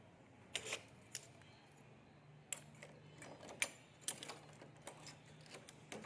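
Irregular sharp clicks and light knocks, about a dozen, spaced unevenly, of hand tools or hardware being handled during door repair work, over a faint steady low hum.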